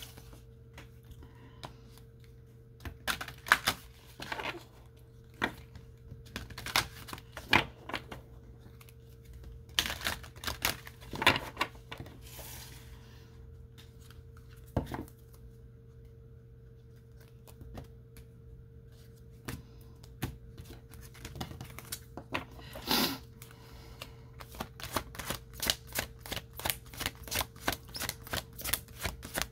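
Tarot and oracle cards being handled on a wooden table: scattered taps and slaps of cards and a card box, then, over the last several seconds, a deck being shuffled in a rapid run of quick card flicks. A faint steady hum underneath.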